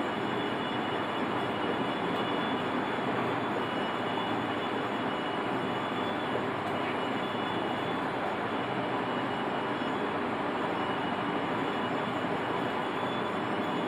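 Steady, even background rushing noise of the room, holding constant level with no distinct events.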